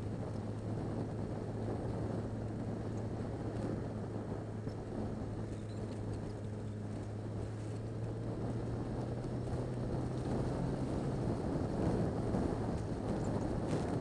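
Yamaha XJ6 Diversion's inline-four engine running steadily under way, heard from the rider's helmet with wind rush over the microphone. About eleven seconds in, the steady engine hum drops away and the wind rush grows louder.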